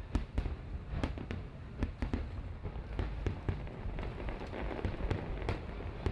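Aerial fireworks shells bursting, with many irregular sharp bangs and crackles over a steady low rumble.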